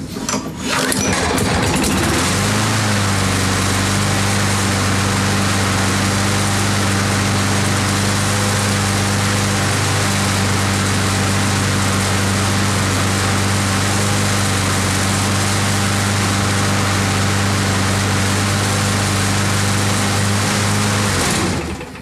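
Craftsman 22-inch self-propelled lawn mower's engine catching about two seconds in and running steadily at one pitch, about 3,000 RPM, with no smoke and no weird noises, a sign that it is in good health. It shuts off about a second before the end.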